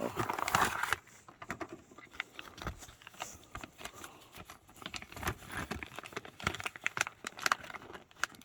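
Crinkling and scattered light clicks of small plastic model parts and packaging being handled, loudest in the first second.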